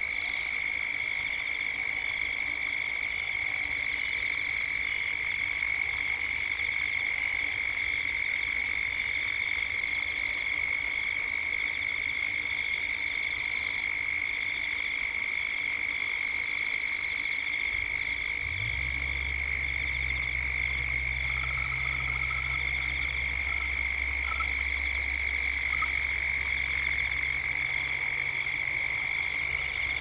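Cicada chorus with a steady high-pitched drone and a pulsing upper layer above it. A low steady hum joins about two-thirds of the way through, and a few faint short calls sound shortly after.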